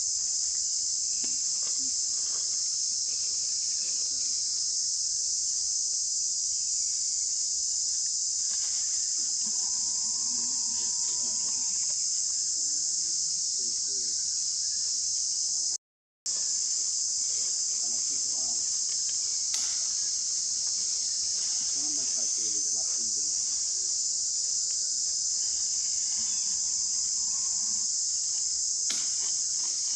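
Dense insect chorus: a steady, high-pitched drone that breaks off for a moment about halfway through.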